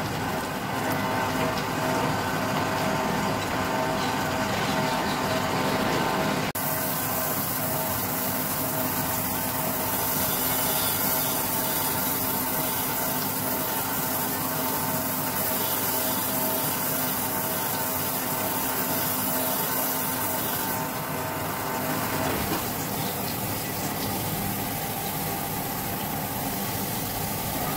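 Crankshaft grinding machine running steadily, its motor humming and coolant splashing on a Swift crankshaft. From about six seconds in to about twenty-one seconds the grinding wheel is cutting a crank journal, adding a higher hiss.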